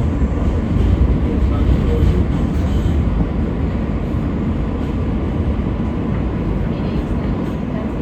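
New York City subway L train running, a steady low rumble of wheels on the rails and the car's running gear, a little louder in the first few seconds.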